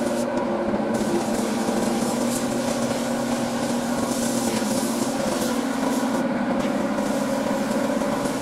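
Hiss of a gravity-feed spray gun spraying paint onto a car bumper over a steady motor hum. The high hiss drops away briefly twice.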